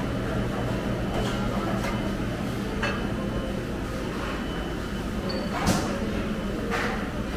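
Buffet-restaurant room tone: a steady low hum with a few short, sharp clinks like dishes or utensils, the loudest a little past halfway.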